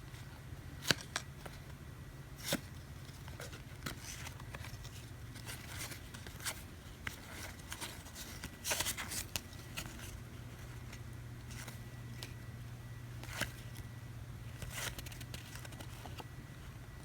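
Trading cards being handled and flipped through one by one: light scattered clicks and slides of card stock, with a short burst of rustling about nine seconds in, over a steady low hum.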